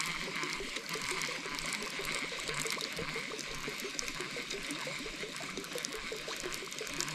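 Macquarie River water running and trickling steadily, with many small gurgles.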